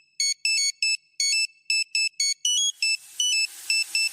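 Electronic chime melody of short, quick beeps at several pitches. A background hiss rises under it from about halfway in.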